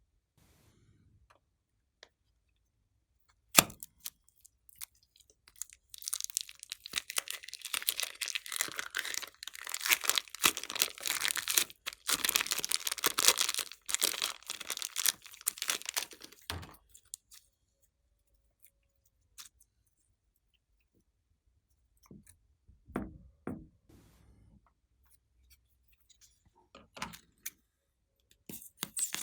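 Glossy slime being squished and worked by hand, giving a long stretch of dense, crisp crackling and popping, with a sharp click before it and a few scattered pops near the end.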